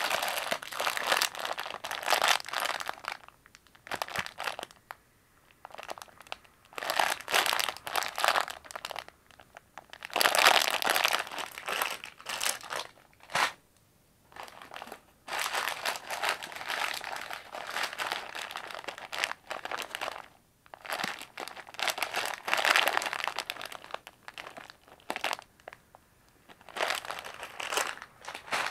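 Plastic packaging and sweet wrappers crinkling in repeated bouts as hands rummage through a cardboard box of packaged snacks, with short pauses between the bouts.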